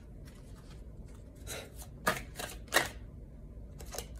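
Tarot cards being shuffled by hand: a string of short papery crackles and flicks, loudest a couple of times near the middle.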